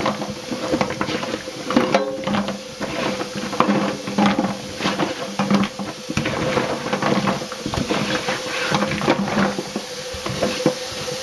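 Hulled black walnuts churned by gloved hands in a stainless steel sink of water, clattering and knocking against each other and the sink in a dense, irregular stream of clicks. This is the second rinse, washing the dark husk sludge off the nuts.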